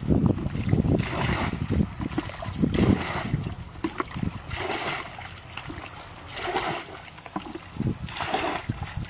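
Muddy water being scooped with a plastic bucket and poured out of a shallow pool, a splashing pour about every two seconds, over low wind rumble on the microphone.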